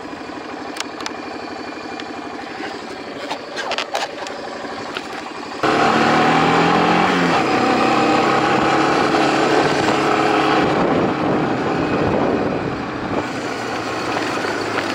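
Quad bike engine idling, with a few sharp clicks over it; about five and a half seconds in it suddenly gets louder and rises in pitch as the quad pulls away, then runs steadily under way.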